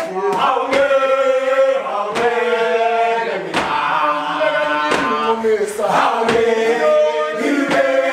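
A group of young voices chanting a song in unison as a gumboot dance, with a sharp hit about every second and a half from Wellington boots stamping on a tiled floor.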